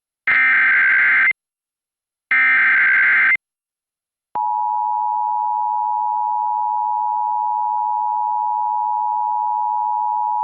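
Emergency Alert System alert opening: two bursts of SAME header data tones, each about a second long and a second apart. About four seconds in, the steady two-tone EAS attention signal (853 and 960 Hz) begins and holds.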